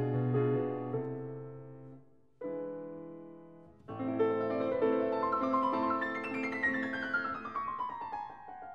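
Background piano music: held chords fade out about two seconds in, a new chord follows, then the music picks up with a descending run of notes.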